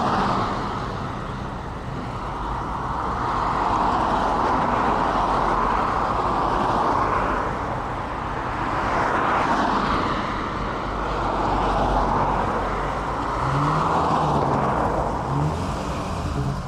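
Cars passing one after another on a main road, each one's tyre and engine noise swelling and fading every few seconds. Over the last few seconds a low engine note rises and falls as a car pulls away.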